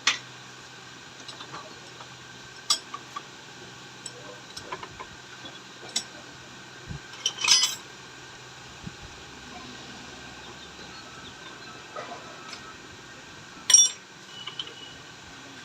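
Metal tools and shock-absorber parts clinking and knocking while a motorcycle mono-shock is reassembled: scattered sharp metallic clicks, a quick cluster about halfway through and a loud knock near the end, over a faint steady hum.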